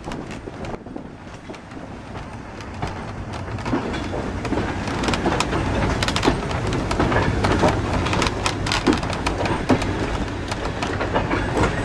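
Railway brake van rolling slowly over yard track: a steady low rumble with frequent clatter, knocks and creaks from the wheels and the van's body, growing louder about four seconds in.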